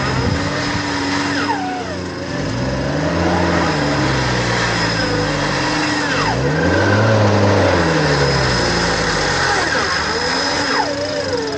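An off-road 4x4's engine revving up and dropping back again and again, roughly every three seconds. This is typical of a vehicle being driven hard through an obstacle.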